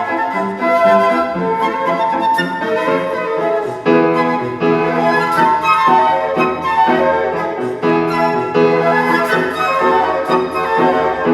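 Live flute playing a melody over piano accompaniment, in a classical style.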